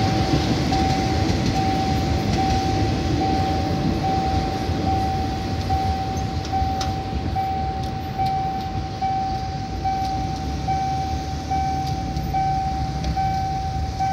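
Level-crossing warning signal sounding a repeating tone, a little more than one beep a second, over the fading rumble of a passenger train moving away from the crossing.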